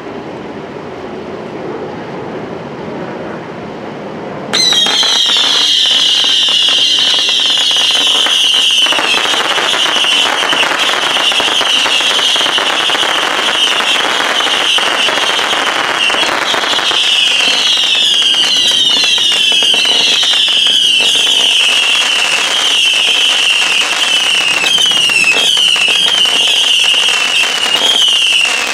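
A 750-shot Saturn missile battery firing in a rapid, continuous stream from about four and a half seconds in. Dense pops and crackles sound under a shrill chorus of whistles that dip in pitch again and again.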